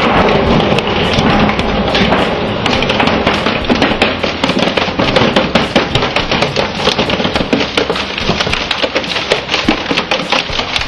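Heavy shredding machine crushing material, with a dense, rapid run of cracks and snaps that thickens into continuous crackling about three seconds in.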